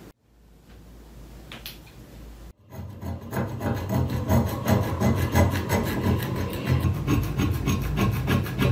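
Flat steel blade scraping rust off a wrought-iron adze head held in a bench vise, a fast run of repeated rasping strokes. The scraping starts about three seconds in, after a quieter stretch.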